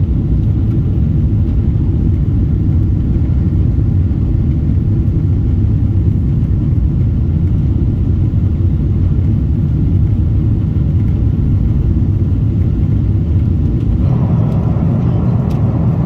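Steady low rumble of a jet airliner's engines and airflow heard inside the cabin during the climb after takeoff. About two seconds before the end the rumble changes to a brighter, hissier tone.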